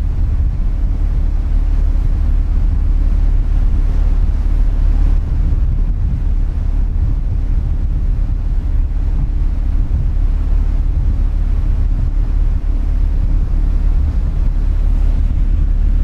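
Steady low rumble of a car ferry's engines, with wind rushing over the microphone.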